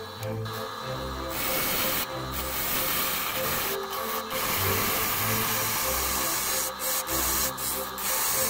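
Background music with a bass line, over the hiss of a turning tool cutting a spinning wooden blank on a lathe; the cutting hiss breaks off briefly several times as the tool comes off the wood.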